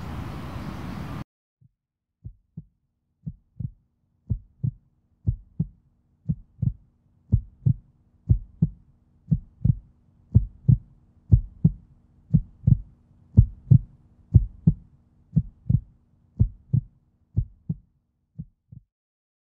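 A heartbeat sound effect: paired low thumps, lub-dub, about once a second, growing louder toward the middle and fading away near the end, over a faint steady low tone. It starts after a steady outdoor hiss cuts off about a second in.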